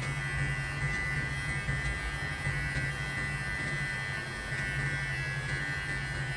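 Xiaomi Enchen Hummingbird electric hair clipper running with a steady buzz as it trims hair at the side of a man's head.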